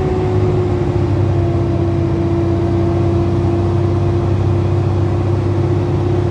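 Heavy truck's engine heard from inside the cab, running steadily downhill as a low drone with a steady whine over it. The whine dips slightly in pitch in the first second.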